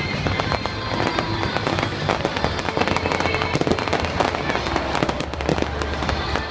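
Fireworks going off in dense, rapid pops and crackles from gold crackling comets and bursts, over a music soundtrack with a steady low bass.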